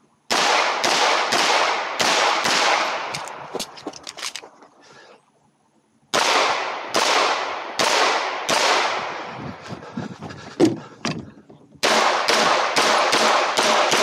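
Strings of pistol shots from a SIG P320 compact on an Icarus Precision frame with a ported slide, fired in quick succession, each crack followed by a short echo. There are three strings, with a brief pause before the second and a sparser stretch before a fast final string near the end.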